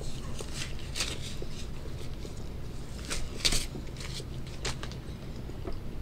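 Black nitrile gloves rustling and snapping as they are worked and pulled off the hands: irregular short crackles in a few clusters.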